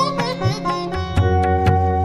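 Background instrumental music in an Indian classical style: a quick cascade of plucked string notes at the start, then held melody notes over a steady drone, with occasional plucks.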